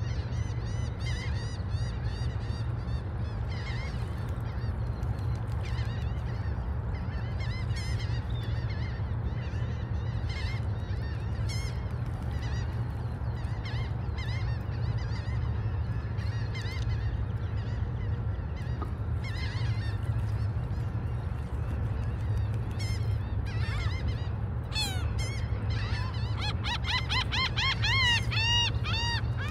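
Gulls calling in short, repeated arched notes, breaking into a dense rapid series of calls near the end, over a steady low rumble.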